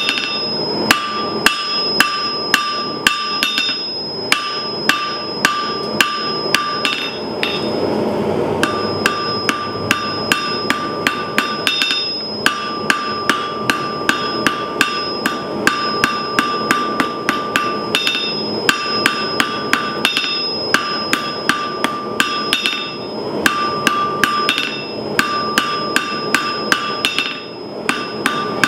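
Blacksmith's hand hammer striking a thin red-hot steel rod on an anvil in quick, even blows about three a second, the anvil ringing between strikes; the hammering stops briefly about eight seconds in. A steady rushing noise runs underneath.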